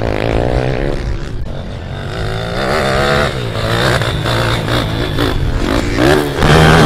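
Pit bike engine revving up and down on the throttle as it rides the dirt track, its pitch rising and falling repeatedly.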